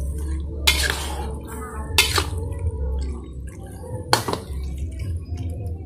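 A spatula stirs freshwater mussels in their shells through a wet sauce in a wok. The shells clink and slosh, with three sharp knocks of the spatula against the pan, over a low steady hum.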